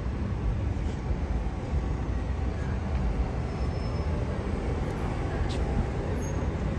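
Steady outdoor city-centre street noise while walking: a continuous low rumble of buses and traffic with the background hum of passers-by, and no single event standing out.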